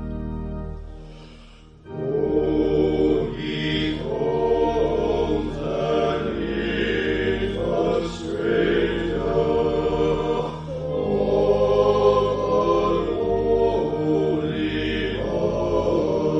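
An electronic organ chord fades out, then about two seconds in a man's voice, multi-tracked into four-part harmony, starts singing a slow Christmas carol over sustained low notes.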